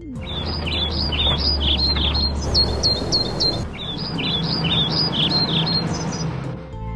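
Birds chirping in quick, repeated short calls over a low, steady rumble like a vehicle engine.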